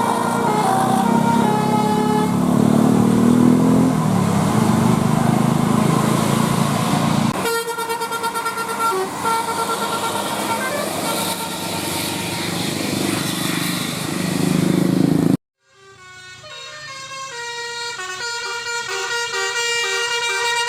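Bus telolet 'basuri' musical air horns playing a tune of short stepped notes over the rumble of a passing bus engine. The sound cuts off abruptly about three quarters of the way in, then a similar tune of clean notes fades back in.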